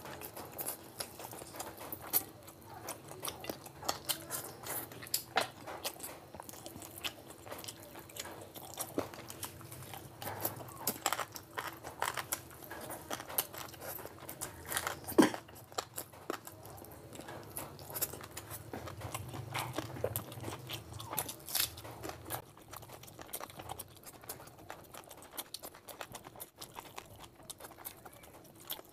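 Close-miked eating sounds: a man chewing curry and rice with wet, irregular mouth clicks and lip smacks, the loudest smack about fifteen seconds in. A faint steady hum lies underneath.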